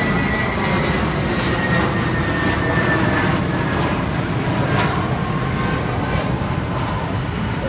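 Airbus A320-232 jetliner's twin IAE V2500 turbofans at take-off thrust as it climbs out overhead: a steady jet roar with a thin high whine that slowly falls in pitch.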